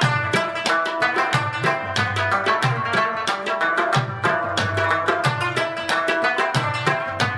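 Afghan rubab instrumental music with a steady tabla beat under fast plucked string notes.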